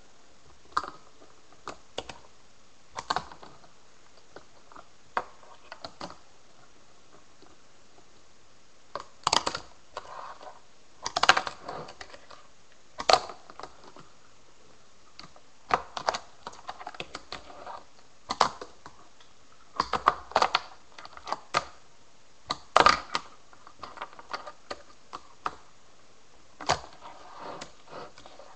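Tech Deck fingerboard being flipped and landed on a plastic box lid and a tabletop: irregular sharp clicks and clacks of the little deck and plastic wheels, some single and some in quick flurries. The flurries come mostly in the middle of the stretch.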